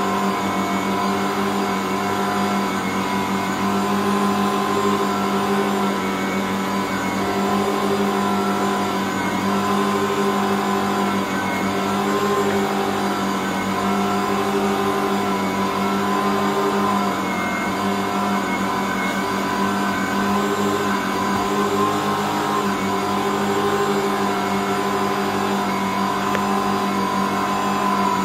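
Ankarsrum 6230 stand mixer running steadily, its motor humming as it kneads a stiff bread dough of flour, water and salt.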